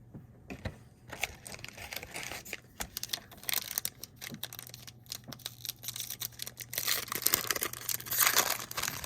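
Foil trading-card pack wrapper being crinkled and torn open by hand, an irregular run of crackles that grows loudest with a ripping sound near the end.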